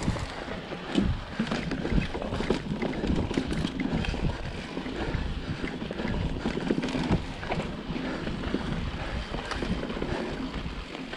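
Mountain bike descending a rough dirt singletrack: tyres rolling and bumping over dirt and rocks, the bike rattling with frequent irregular knocks, and wind buffeting the microphone.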